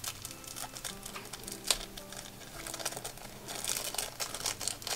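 Small clear plastic bag crinkling as fingers open it and shake out a little item, with one sharp tick about a third of the way in and the thickest crinkling near the end.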